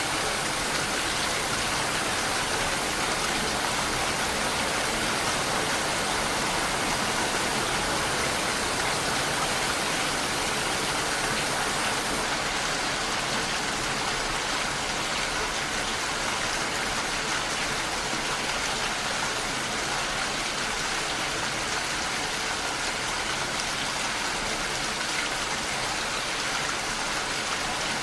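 Steady rain falling, an even hiss of many drops; the highest part of the hiss drops away about twelve seconds in.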